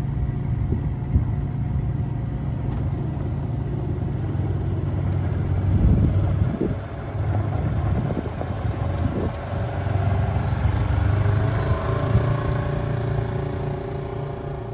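Polaris Ranger XP 900 side-by-side's twin-cylinder engine running as it drives on gravel, with a whine that climbs in pitch about ten seconds in as it speeds up, then fades a little as it pulls away.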